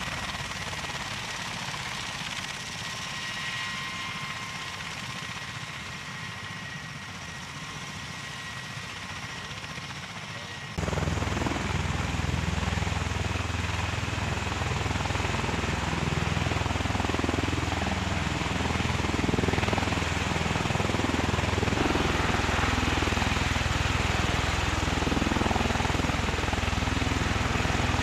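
MV-22 Osprey tiltrotor's engines and rotors running steadily with a faint whine. About eleven seconds in, the sound jumps abruptly to a louder, closer rotor noise with a rapid chopping beat as the aircraft is seen lifting off.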